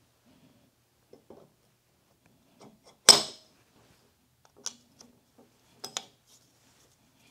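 Metal handwheel being fitted onto the crossfeed shaft of a Cincinnati No. 2 tool and cutter grinder and tightened with a hex key. About three seconds in comes one sharp metallic clank that rings briefly, and lighter metal clicks follow twice more near the end.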